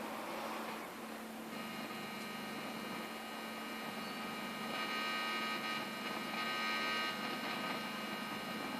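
Fender Champ 25 SE guitar amplifier giving off a steady electrical hum and buzz over a hiss. The buzz comes in about a second and a half in and swells louder twice near the middle. It is a noise fault the owner has not traced, which he says appears once the volume is set above 2.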